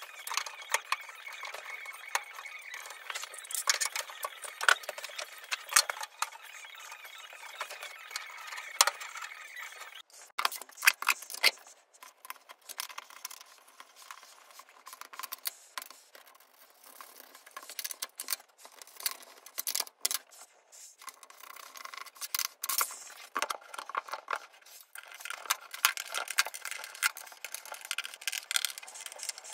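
Irregular clicks and light metallic clinks of small hardware being handled: bolts and nuts set down on a metal router table insert plate and a screwdriver working its screws.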